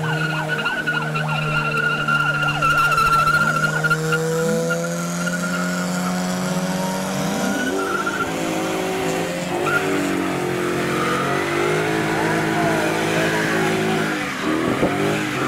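Modified car's engine held at high revs while its tyres squeal in a steady skid, as in a powerslide or burnout. The squeal stops about eight seconds in, and the engine then revs up and down.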